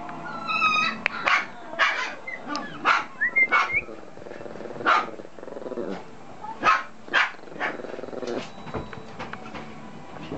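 A four-month-old long-coat Chihuahua puppy barking and yipping in play: about nine short, sharp barks at uneven intervals.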